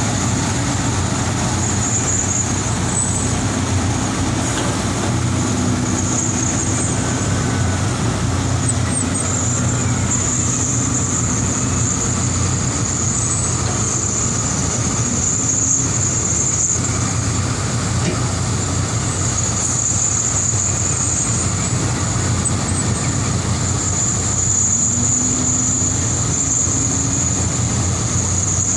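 Old Sany hydraulic excavator's diesel engine running steadily under load as the machine climbs a coal pile on its tracks, with a steady high-pitched whine over it.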